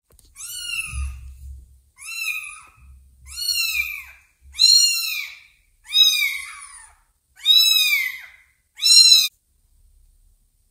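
A tiny kitten meowing seven times in a row. Each call is short and high-pitched, rising then falling in pitch, and they come about a second apart, getting louder toward the end.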